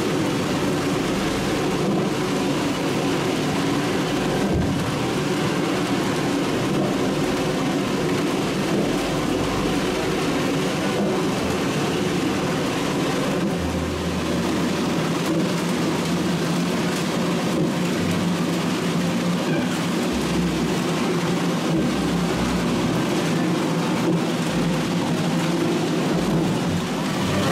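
Steady engine drone over a constant rushing noise, unchanging in level throughout.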